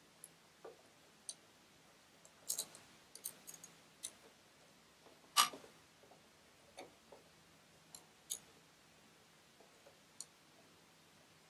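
Scattered light metal clicks and taps as a sewing machine's metal needle plate is set back in place by hand and its screws fitted, the loudest about five and a half seconds in.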